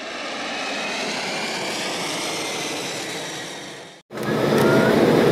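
Jet aircraft noise with faint gliding tones, fading in and then fading out to a brief silence about four seconds in. The louder, steady engine noise inside an Embraer E190 cabin then starts, with a steady whine running through it.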